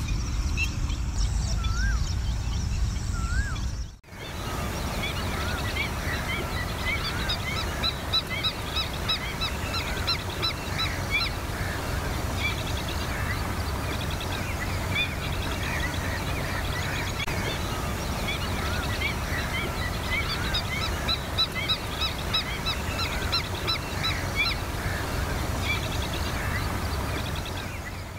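A chorus of many birds calling: chirps, curling whistles and quick runs of high notes, over a low steady rumble. The sound cuts out briefly about four seconds in, then comes back with more birds.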